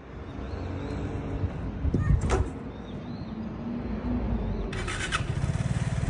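A Vespa scooter's small single-cylinder engine idling with a steady low rumble, with a short sharp sound about two seconds in and a brief hiss near the end.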